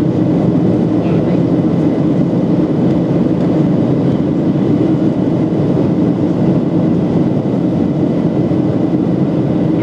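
Steady engine and airflow noise inside the cabin of a Boeing 737-800 in flight, with its CFM56-7B turbofans running. It is a loud, even, low rumble with a faint steady hum and no change in level.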